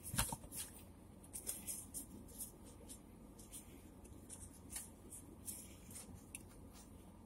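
Faint rustling and handling of a folded T-shirt being pulled out and spread open by hand, a series of short soft rustles, a little louder in the first second.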